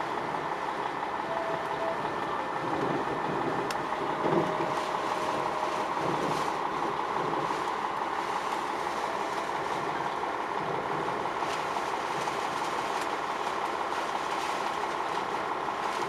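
Storm wind and rain beating on a parked semi-truck's cab, heard from inside as a steady rushing noise, with one short thump about four seconds in.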